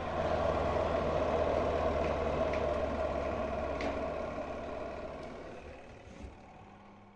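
GFC 8600 twin-tub washing machine's spinner running with a steady hum. It is balanced again now that its motor's missing mounting nut has been refitted. The sound fades away over the last few seconds.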